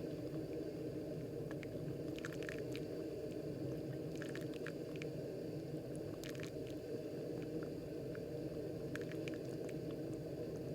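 Technivorm Moccamaster KBGV Select drip coffee maker brewing: a steady low rumble from the machine, with scattered small pops and crackles as hot water showers onto the blooming coffee grounds.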